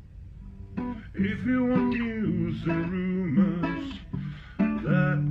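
Music with plucked and strummed acoustic guitar and a singing voice, coming in about a second in.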